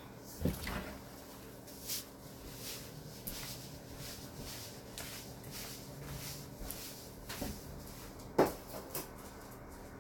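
A few scattered knocks and bumps, like things being handled in a small room, the sharpest and loudest about eight and a half seconds in, over a faint steady hum.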